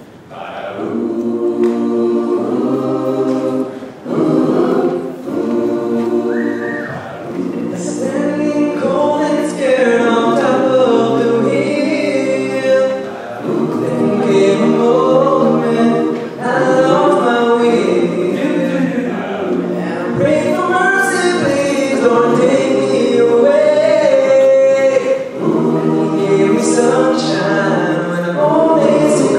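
Mixed-voice a cappella choir singing a gospel-style song in close harmony. It opens on held chords, and from about the middle a male soloist sings the lead over the group's backing.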